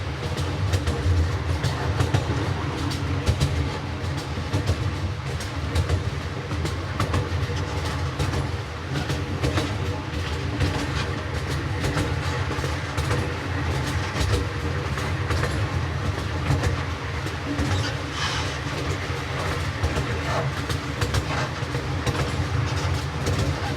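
Miniature safari train running, heard from aboard a passenger car: a steady low rumble with frequent clicking of the wheels on the track.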